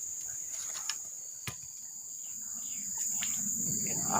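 Insect chorus: a steady, high-pitched buzzing. A sharp click about a second and a half in, and rustling handling noise building near the end.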